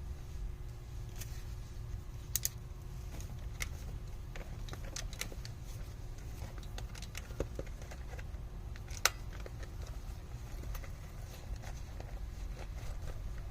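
Scattered small metallic clicks and taps of hands working on wiring and parts, the sharpest about nine seconds in, over a steady low rumble.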